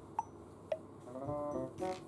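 Light background music: a few short single notes, then sustained chords coming in just past a second in.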